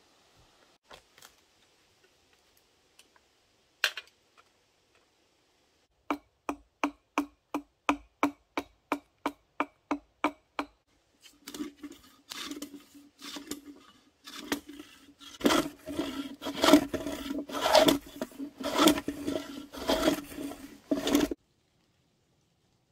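Metal hand plane working the split face of a green log. First comes a run of short, even strokes, about three a second, then longer, louder scraping strokes. The log rings with a low tone on every stroke, and the planing stops abruptly near the end.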